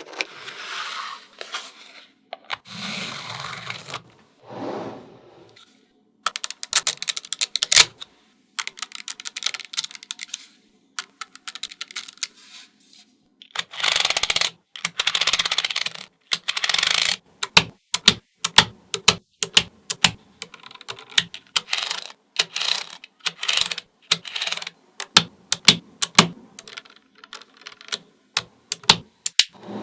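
Small magnetic balls clicking and snapping against one another in quick, irregular runs as they are placed. There are a few longer stretches of rattling noise near the start and about halfway through.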